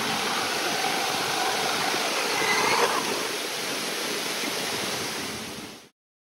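Steady rush of falling water from a water-wall fountain and rain, with splashing and a faint electric motor whine from an RC Baja Bug driving through standing water; the whine briefly rises and falls in pitch about halfway through. The sound cuts off suddenly near the end.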